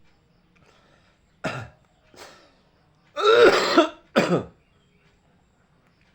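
A person coughing and clearing their throat, four times: a sharp cough, a fainter one, a longer and louder throat-clearing with a wavering pitch, then another sharp cough.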